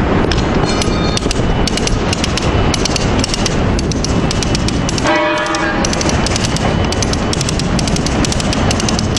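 A lever-operated come-along hoist's ratchet clicking rapidly as its handle is pumped back and forth, drawing the conveyor belt tight for splicing. Under it runs a loud, steady rumble, and there is a brief squeal about five seconds in.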